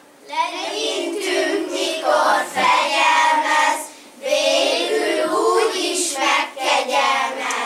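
A group of children singing together in unison, with a short break about four seconds in.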